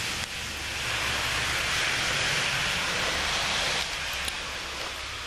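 A vehicle passing on a wet, slushy street: tyre hiss over a low rumble that swells for a few seconds and then eases off.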